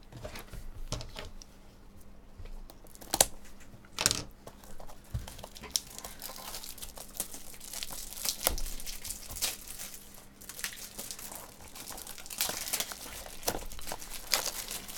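Foil trading-card pack wrappers crinkling and being torn open, with a few sharper crackles and snaps among the steady rustle.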